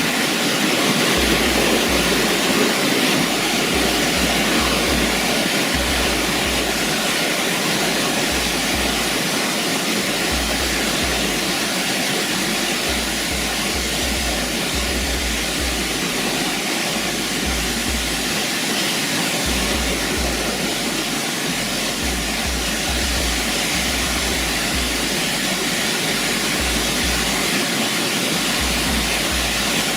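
Waterfall rushing steadily, with an uneven low rumble coming and going underneath.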